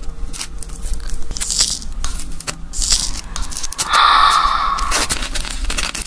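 Fingers peeling a boiled maodan, a half-developed chicken embryo egg: small crackles and scrapes as the shell and membrane are picked at, then a louder, longer tearing sound about four seconds in as the membrane is pulled off the feathered chick.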